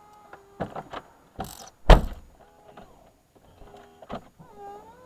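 Electric tailgate of a 2007 Volvo XC70 being slammed repeatedly: several thuds, the loudest about two seconds in, with the whine of the tailgate's motor between them. The tailgate refuses to shut because its rubber seal has been kicked loose.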